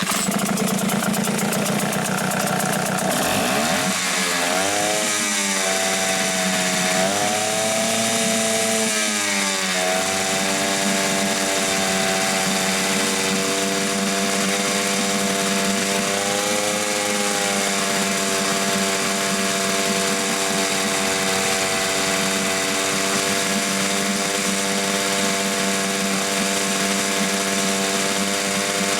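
Hangkai 6 hp outboard motor running during a run-in after a rebuild with a replaced crankshaft. Its speed rises and falls a few times between about 4 and 10 seconds in, then it runs steadily at an even pitch.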